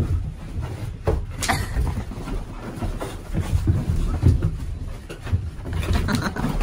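Irregular thumps and scuffling of a person and a Labrador puppy running around a room, with a few sharper knocks.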